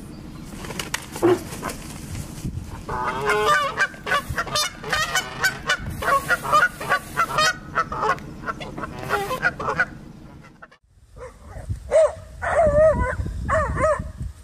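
Canada geese honking in a rapid run of repeated calls, dense in the middle stretch. Near the end the sound breaks off for a moment, and a few other pitched calls follow.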